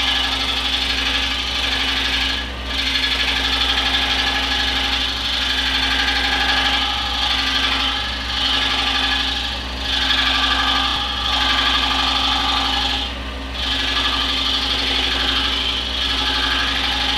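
Scroll saw running steadily while its reciprocating blade cuts into a small wooden board. The cutting sound drops briefly about two and a half seconds in and again about thirteen seconds in.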